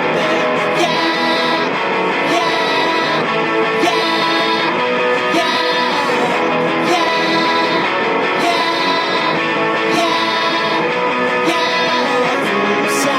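Rock band playing an instrumental passage: guitars strumming over bass and drums, with cymbal crashes.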